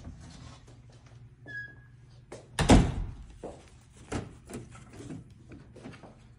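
A door shutting with a heavy thunk about two and a half seconds in, with a brief high squeak just before it and a few lighter knocks after. A low steady hum runs underneath.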